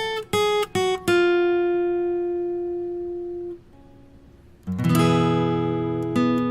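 Acoustic guitar music: a few short plucked notes, then one long note that rings and fades, and a strummed chord about five seconds in.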